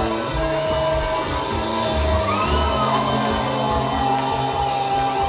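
Live rock band playing full out: drums, bass and guitars with held notes, and a voice singing or whooping over them in gliding pitches.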